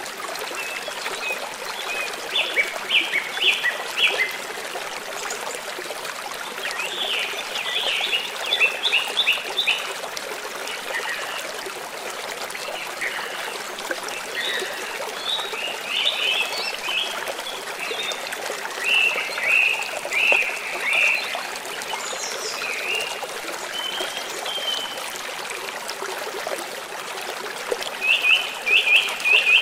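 Stream water running steadily, with birds singing over it in short runs of quick, high repeated notes that come and go several times.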